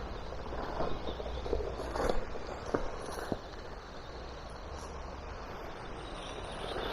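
Haiboxing Protector electric RC car driving over rough ground: a steady rustling noise with a handful of sharp knocks and rattles between about one and three and a half seconds in.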